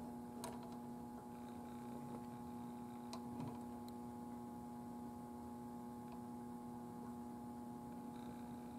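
Steady mains hum, with a few faint clicks as the analytical balance's adjustment knob is turned.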